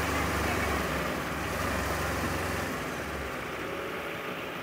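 A vehicle engine runs hard with a steady low hum while a pickup stuck in mud is towed by rope and pushed free. The hum drops off about three seconds in.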